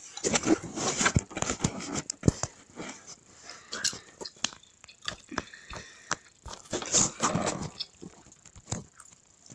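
Handling noise from a phone being picked up and moved: irregular clicks, knocks and rustling, busiest in the first couple of seconds and again about seven seconds in.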